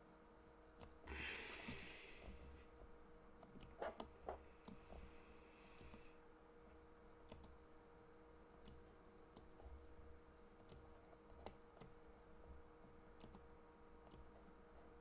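Near silence: room tone with a faint steady hum. A short breathy rush of hiss comes about a second in, and a few faint clicks are scattered through it, the clearest a pair about four seconds in.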